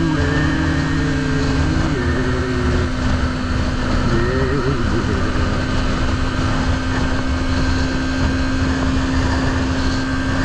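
Motorbike running at a steady cruise: a constant engine drone that holds one pitch, under loud rushing wind noise on the microphone.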